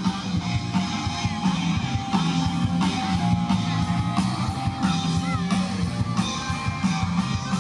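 Rock music with electric guitar and drums, and some singing.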